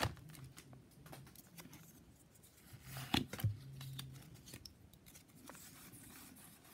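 Faint clicks and rustles of Pokémon trading cards being handled and shuffled between the hands, with a few sharper clicks about three seconds in.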